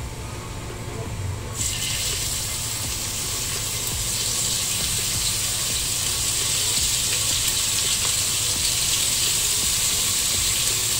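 Beef slices and enoki mushrooms sizzling as they go into a hot frying pan. The steady hiss starts suddenly about a second and a half in.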